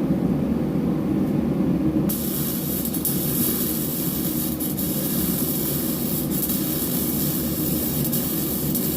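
A 110-volt welder's arc strikes about two seconds in and runs as a steady hiss with a few brief breaks, laying a bead of weld around the inside of a bearing race to shrink it so it can be knocked out. A torpedo heater's steady low roar runs underneath.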